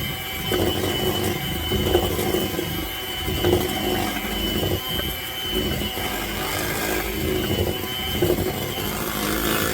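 Electric hand mixer running steadily with a high whine, its beaters working thick cake batter in a bowl.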